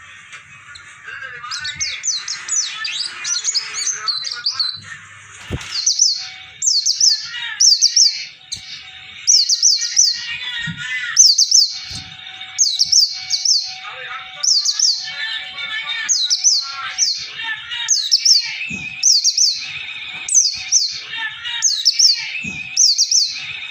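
Kiriwik birdsong: a small songbird repeats a high, fast, falling phrase about once a second, over a busy background of other chirping birds. This is a tutor recording for teaching caged songbirds.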